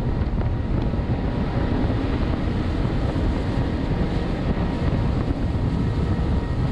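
Quadruple Mercury Racing outboard engines running hard at about 4500 rpm while the boat turns at speed, with wind buffeting the microphone and water rushing past the hull; a steady, unbroken din.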